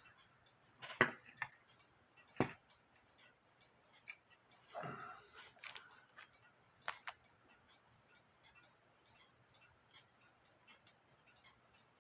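Scattered small clicks and knocks of music box parts being handled and set down, with a short scrape or rustle about five seconds in and faint ticks after.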